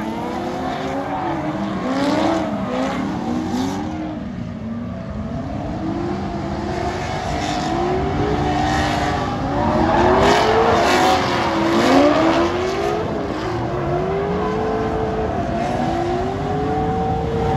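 Several drift cars' engines revving up and down as they slide around the course in a tandem, with many overlapping pitch sweeps rising and falling, over the noise of sliding, smoking tyres.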